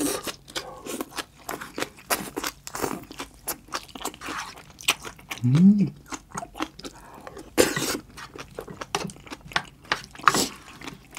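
Close-miked chewing of green onion kimchi and curry rice: wet crunching and many small crackling clicks of the mouth, with a few louder noisy bursts. A brief hummed "mm" comes about five and a half seconds in.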